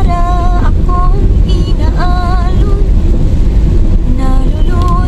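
Steady low road and engine rumble inside a Honda Brio hatchback driving on a wet road, with a voice singing a few short wavering phrases over it in the first half.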